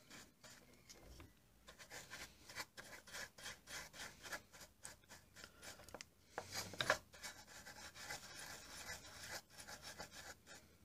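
Soft brush bristles scrubbing back and forth over a printed circuit board: a run of faint short swishing strokes, a few louder ones about two-thirds of the way in. The board is being brushed clean of excess thinner after soldering.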